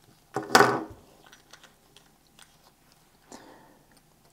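Screw-down steel watch case back being turned off by hand: one loud, short creaking squeak about half a second in, then light scrapes and small clicks as it turns in its threads.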